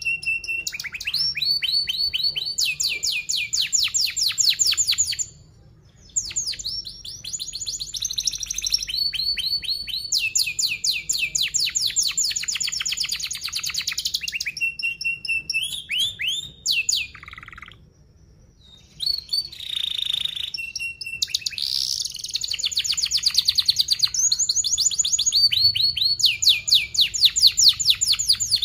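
Young domestic canary singing: long fast rolls of rapidly repeated high notes and trills, broken by two short pauses, one about five seconds in and one about seventeen seconds in.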